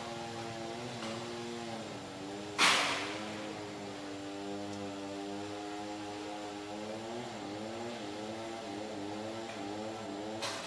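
An engine running steadily, its drone wavering slowly in pitch. A sudden loud rushing burst comes about two and a half seconds in, and a smaller one near the end.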